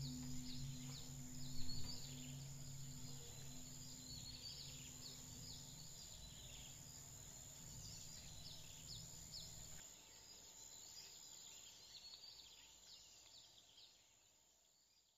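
Birds singing faintly, many short high chirps and trills, over a low steady drone left from the music that stops about ten seconds in; the whole fades out near the end.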